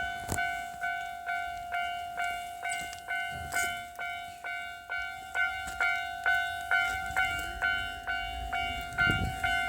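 Japanese railway level-crossing warning bell ringing in a steady repeated ding, about two strikes a second, signalling an approaching train. A low rumble builds underneath near the end as the train nears.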